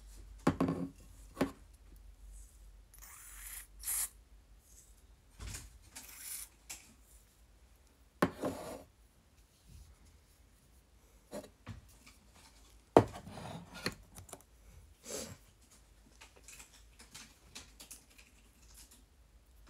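Hair being styled by hand: scattered short rustles and clicks, with a few brief hissing stretches, the loudest a sharp click about thirteen seconds in.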